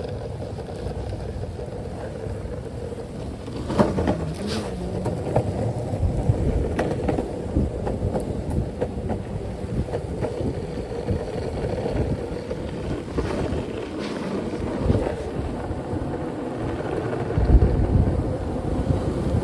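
Skateboard wheels rolling over pavement: a steady rumble broken now and then by sharp clacks, with some wind on the microphone.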